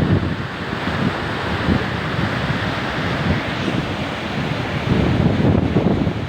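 Steady rush of floodwater with wind buffeting the microphone in uneven low gusts, heaviest near the end.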